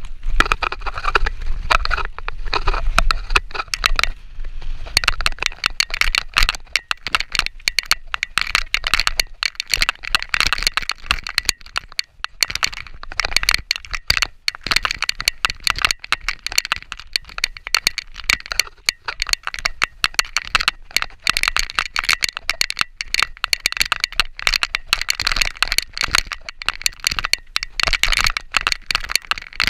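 Mountain bike clattering down a rough, rutted trail: a dense, continuous rattle of small knocks and clicks as the bike jolts over the ground.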